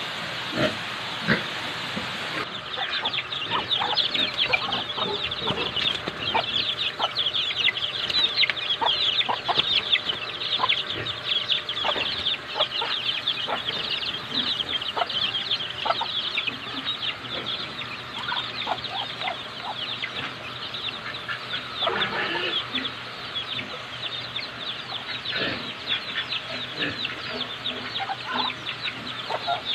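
A flock of poultry calling all at once: a dense, overlapping chorus of short high chirps and clucks that sets in about two seconds in and carries on without a break.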